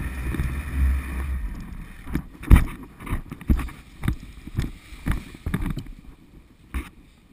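Wind rush and low rumble on the microphone that die away just over a second in. Then a run of thumps about twice a second, the loudest about two and a half seconds in: a paramotor pilot's footsteps and harness gear on grass just after touching down.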